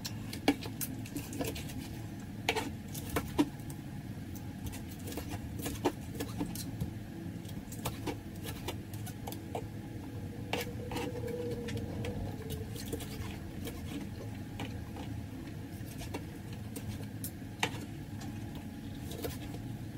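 Chef's knife cutting soft cooked pork stomach on a plastic cutting board, with a fork steadying the pieces: irregular light taps and clicks of the blade and fork against the board, over a low steady hum.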